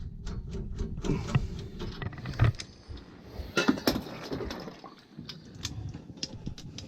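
Irregular clicks, clinks and knocks of hard objects being handled, with a couple of louder knocks about two and a half and three and a half seconds in, over a low background rumble.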